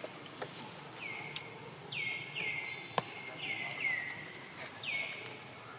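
A bird calling repeatedly in the forest: about eight short high calls, each sliding down and ending on a briefly held note, a fraction of a second to a second apart. Two sharp clicks come about a second and a half in and again near the middle.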